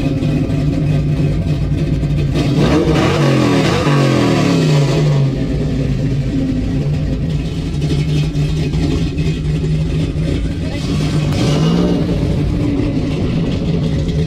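Ford 390 big-block V8 with a roller cam in a 1968 Mustang GT, freshly started and running loud through its exhaust. It is revved in several quick blips about two to five seconds in, settles back to a steady idle, and is revved once more about twelve seconds in.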